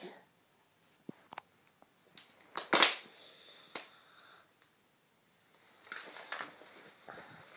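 Small hard objects clicking and clattering on a wooden floor: a few light knocks, the loudest clatter about three seconds in, then scuffing and rustling toward the end.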